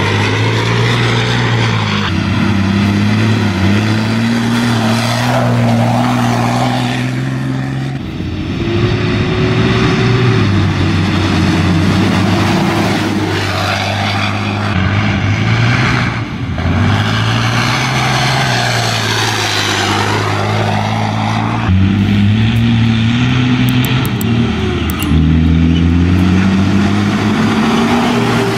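Rally trucks' big diesel engines running hard under load through sand, the engine note climbing and dropping with throttle and gear changes, with abrupt shifts in sound as the shots change.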